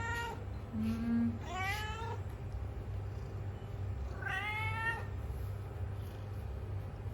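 Domestic cat meowing: two drawn-out meows rising in pitch, about one and a half seconds in and again about four seconds in, over a steady low hum.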